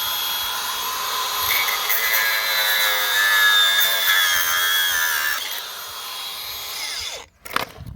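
Small power tool, such as a drill or rotary tool, running under load against the chainsaw's plastic housing. Its high whine wavers and dips in pitch, then cuts off about seven seconds in, followed by a few sharp clicks.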